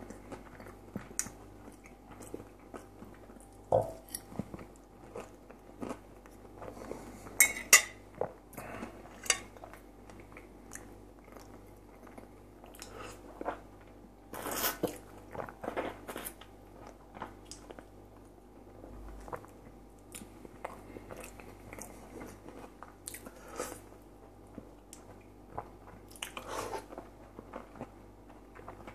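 Close-up eating sounds of a man chewing and biting fried potatoes and lightly salted tomatoes and cucumbers: scattered crunches and sharp mouth clicks, loudest about 7 to 8 seconds in and again near 15 seconds.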